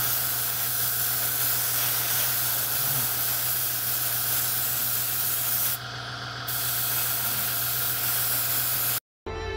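Airbrush spraying paint: a steady hiss of air and atomised paint that thins briefly about six seconds in, then resumes. It cuts off abruptly just after nine seconds, and music begins.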